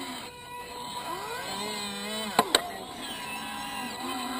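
Electric motors and linear servos of a Hobby Engine RC excavator whining as the arm works, the pitch gliding up and down as the servos change speed. Two sharp clicks a little past halfway are the loudest sounds.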